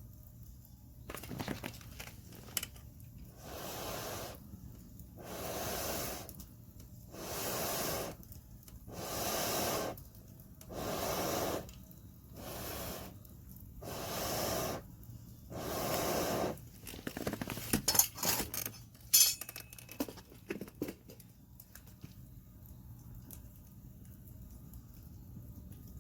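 About nine rushing, hissing puffs of air, each about a second long and coming at the pace of breaths, as air is blown onto a campfire. They are followed by a few seconds of sharp crackles and clicks.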